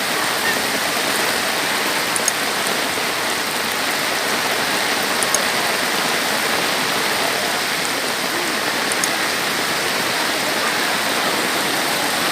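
Heavy rain falling in a steady, even hiss, with a few faint ticks of drops hitting close by.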